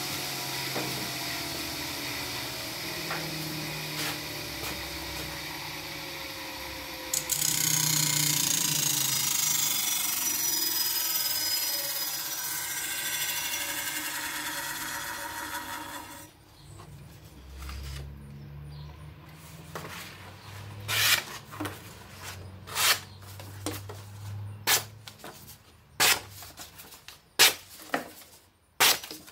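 Bench grinder fitted with MDF wheels running, with a louder steady hiss from about seven seconds in as the machete blade is held against the compound-loaded MDF stropping wheel to take off the burr; the hiss stops abruptly about sixteen seconds in. In the last ten seconds, a series of sharp, crisp cuts as the freshly stropped blade slices through paper.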